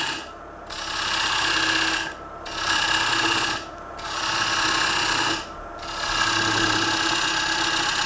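A gouge cutting into a spinning ash bowl blank on a Record Power Coronet Herald wood lathe, hollowing it with a series of V-cuts. The scraping comes in four strokes of one to three seconds with short pauses between them, over the lathe motor's steady hum.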